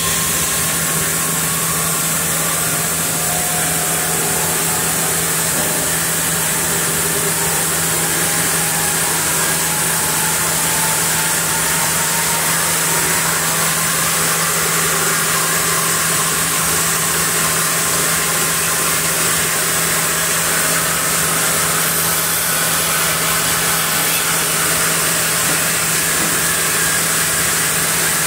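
Log band saw mill and its carriage machinery running steadily, with a constant low hum under the machine noise and a faint whine rising slowly in pitch over the first dozen seconds.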